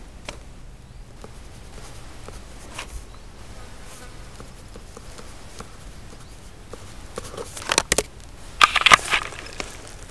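A flying insect buzzing faintly over the grass. About three quarters of the way through comes a loud cluster of rustles and knocks as the camera is moved in through the vegetation.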